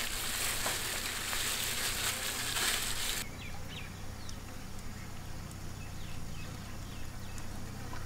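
Gloved hands squishing and turning chicken pieces through a thick masala marinade in a large metal pot: wet squelching and rustling. It cuts off abruptly about three seconds in, leaving a quiet background with a few faint chirps.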